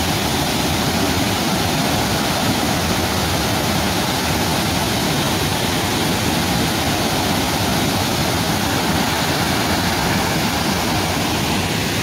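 Waterfall's water rushing steadily: an even, unbroken noise with no changes.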